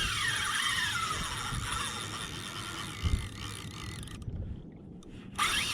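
Penn Spinfisher VI spinning reel being cranked in against a hooked fish: a whirring gear whine that rises and falls in pitch with the speed of winding. It drops out for about a second near the end.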